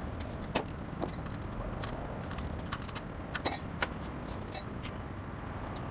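Scattered metallic clicks and clinks of spanners and bicycle parts being handled during bicycle assembly, loudest in a short cluster of clinks about three and a half seconds in and once more about a second later, over steady background noise.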